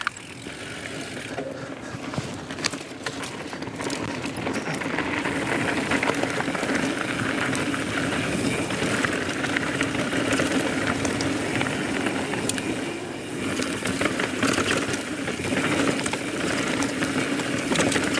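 Transition Spur mountain bike riding fast down a rocky dirt trail: a steady rush of tyres rolling over dirt and loose stones, with many scattered clicks and rattles from the bike. The rush builds over the first couple of seconds as it picks up speed.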